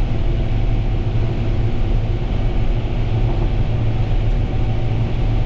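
Combine harvester running steadily, heard from inside the cab: a constant low engine drone with a thin steady whine above it.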